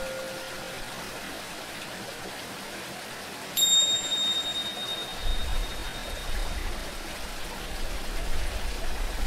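Tingsha cymbals struck once, about a third of the way in, giving a single high, bright ring that fades over a few seconds, over steady running-water noise. At the start the last of a Tibetan singing bowl's lower ring dies away, and a low rumble joins the water from about halfway through.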